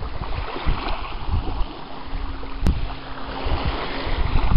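Wind buffeting the microphone in uneven gusts. A faint steady hum comes in about two seconds in, and there is a single sharp click a little past the middle.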